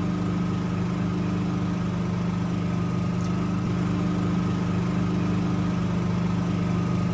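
Portable dual-fuel generator engine running at a steady speed, an even hum with no change in pitch.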